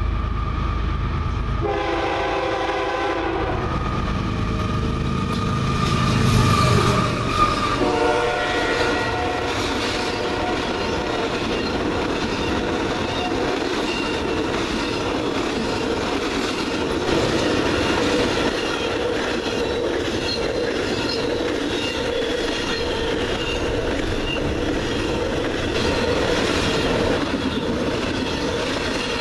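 Freight train passing close by. The locomotive's chord horn sounds about two seconds in and again around eight seconds, and the heavy locomotive rumble is loudest around six to seven seconds. A long string of flatcars and container cars then rolls by with steady wheel clatter on the rails.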